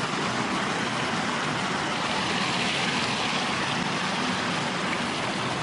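Steady rush of water pouring over a concrete spillway weir into churning white water below.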